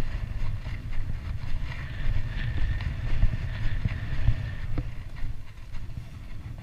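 Wind buffeting the camera microphone: a loud, uneven low rumble. A faint high whine runs through the middle few seconds.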